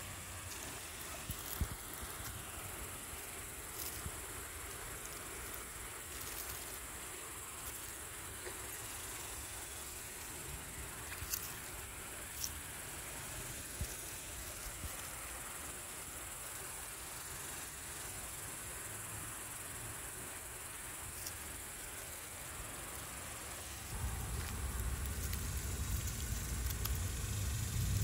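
Insects droning steadily in a high, even tone, with a few short sharp clicks. A low rumble comes in near the end.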